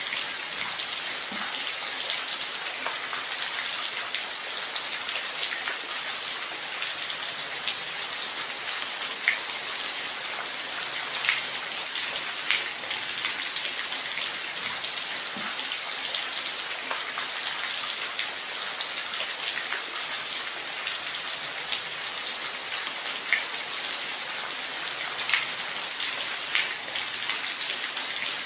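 Steady rain falling, an even hiss with scattered individual drops ticking sharply on a nearby surface.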